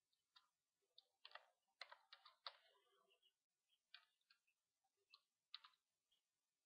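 Faint computer keyboard keystrokes: a few single taps, a quick run of them about two seconds in, then more single taps.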